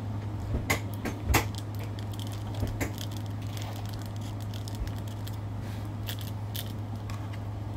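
Handling sounds: scattered light clicks, taps and crackles of small objects being handled, with the loudest tap about one and a half seconds in, over a steady low hum.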